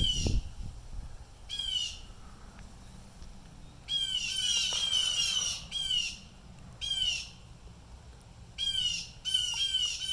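At least three blue jays giving harsh, repeated jay calls, each a short downward-sliding squawk, some coming in quick runs of three or four and others singly with pauses between. The observer takes this for distress calling, as if the birds have seen something threatening.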